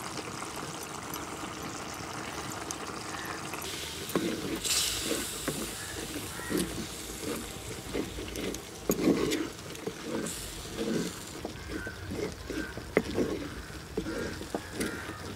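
Thick snail curry simmering in a clay pot, then stirred with a wooden spatula: soft, repeated scrapes and knocks against the pot from about four seconds in.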